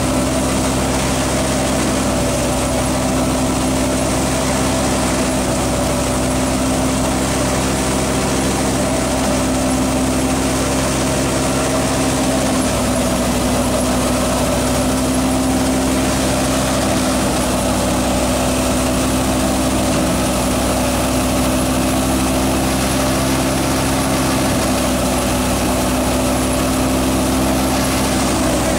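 A Batala wheat thresher running steadily at threshing speed, driven through a PTO shaft by a New Holland Fiat 480 tractor's diesel engine: a continuous, even mechanical drone and hum as it threshes wheat.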